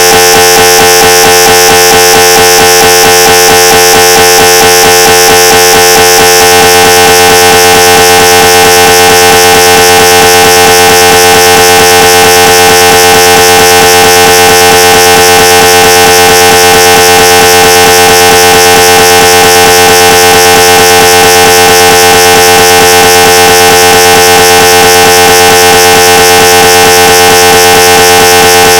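Synthesized recreation of a GE 750w 3T MRI scanner's scan noise: a loud, steady, rapidly pulsing buzz of several held tones, like a pulse sequence running. Its tone shifts about six seconds in.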